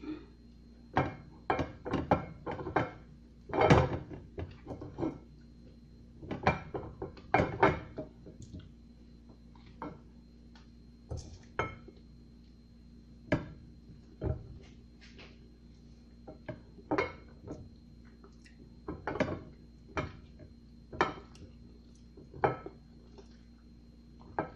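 Eating without hands: mouth biting and chewing banana straight off a plate, with irregular clicks and knocks as the plate shifts under the face. Faint steady hum behind.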